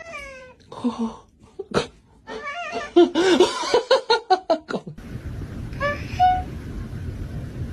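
People laughing, with wavering bursts of voice, for the first five seconds. Then, over a steady background hum, a cat gives one meow about six seconds in.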